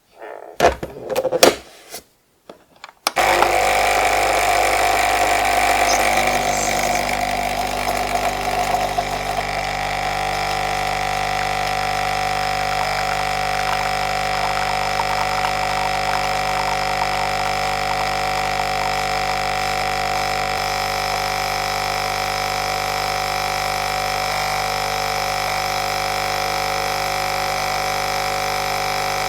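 Senseo pad coffee machine brewing: a few clicks and knocks, then about three seconds in its pump starts with a steady hum and hiss as it pushes hot water through the coffee pad, settling slightly quieter after several seconds.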